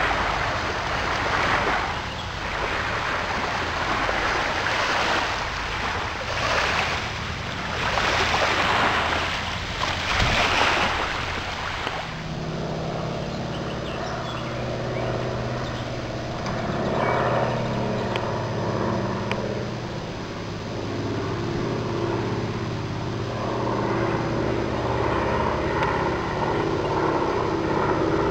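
Gusting wind noise on the microphone, then from about twelve seconds in the steady drone of a Junkers Ju 52's three radial engines as the plane passes overhead, growing a little louder near the end.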